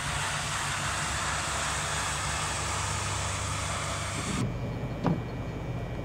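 Snowplow truck passing with its blade down: the engine runs under a steady hiss of the plow and tyres on the slushy road. The sound cuts off sharply about four seconds in, leaving a quieter low hum and a single short thump about a second later.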